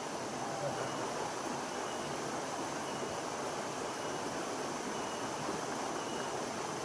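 Clear mountain stream rushing and splashing over boulders in a small cascade, a steady, even rush of water. A faint high peep repeats about once a second behind it.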